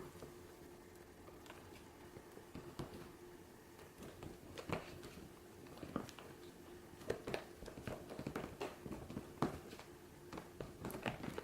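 A mixing utensil stirring a foamy mixture of PVA glue, shaving cream and foaming hand soap in a bowl to work in food colouring. It gives faint, irregular squishy taps and clicks that come faster from about four seconds in, over a steady low hum.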